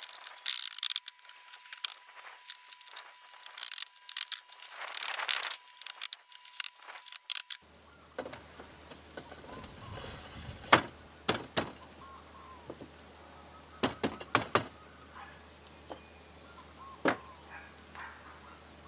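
Glass panels clinking and knocking against a wooden frame as they are slid down into its channels: a busy clatter at first, then several separate sharp knocks in the second half.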